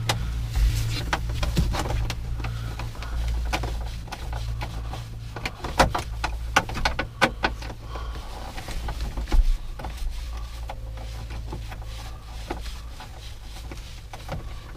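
A small 7 mm screw being turned out by hand with a driver inside a car's dashboard: irregular clicks, taps and scrapes of the metal tool against the screw and the plastic dash trim, over a low steady hum.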